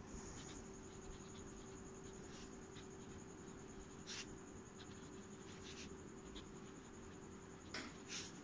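Fountain pen nib scratching faintly on ruled notebook paper as a line of words is written, with a few sharper scratches, two of them close together near the end. A faint steady hum and high whine run underneath.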